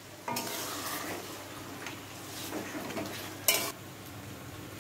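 Water poured from the rinsed spice bowl into a hot kadai of frying masala hits the oil with a sudden sizzle just after the start. A spatula stirs and scrapes in the pan, and a sharp metal clank of utensil on pan comes about three and a half seconds in.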